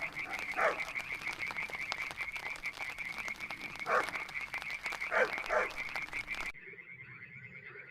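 Frog chorus: a steady, fast pulsing trill from many frogs, with several louder calls that slide downward in pitch. About six and a half seconds in, the sound turns quieter and duller while the trill goes on.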